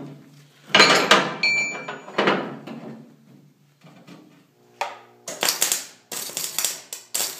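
Steel parts clank and ring as a plate and clamp are set on a line-boring bar. From about five seconds in, a welding arc crackles in several short bursts: tack welds spotting the plate in place.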